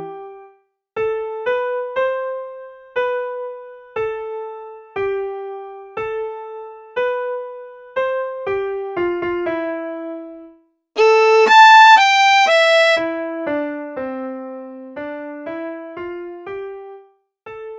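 Music: a simple keyboard melody played one note at a time, about two notes a second, each note decaying after it is struck. A little past halfway there is a brief break, then a louder, brighter run of notes that steps downward.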